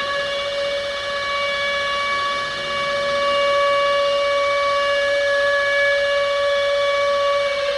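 Civil defense warning siren sounding one long steady tone, starting to wind down in pitch at the very end.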